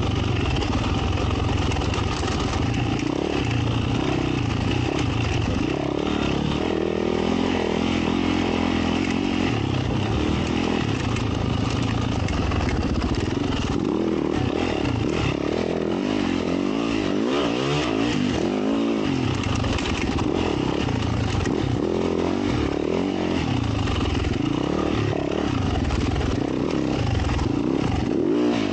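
Yamaha YZ450F dirt bike's single-cylinder four-stroke engine running under constant throttle changes, its pitch rising and falling again and again as it is revved and eased off.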